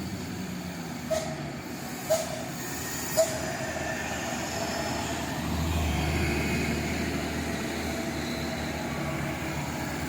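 Heavy bus engine running as it passes, its low rumble swelling in the middle, with three short sharp blips about a second apart near the start.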